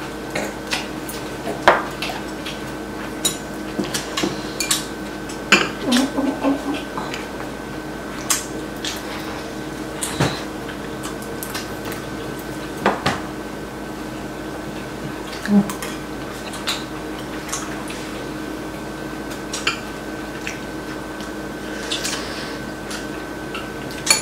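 Metal chopsticks and spoons clicking against ceramic bowls and plates during a meal, in scattered single taps. A faint steady hum runs underneath.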